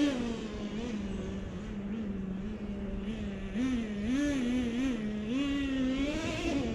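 Traxxas T-Maxx RC truck's small two-stroke nitro engine running at low revs. It settles down in pitch at the start, then gives several short throttle blips that rise and fall briefly.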